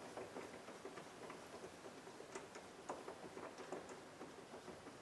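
Faint, scattered light clicks and ticks of the plastic door lock knob being worked off its lock rod, about six small clicks spread irregularly.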